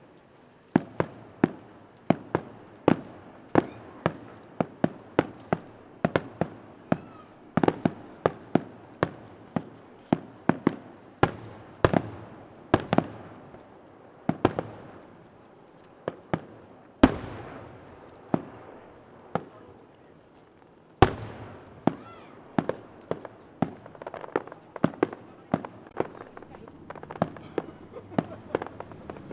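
Fireworks display: aerial shells bursting in quick succession, one or two sharp booms a second, each trailing off in a rolling echo. After the middle come two single, louder bursts separated by short lulls, then the rapid bursts resume.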